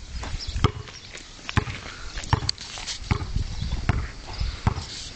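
Basketball dribbled on a concrete court: about six bounces at an even pace, roughly one every three-quarters of a second.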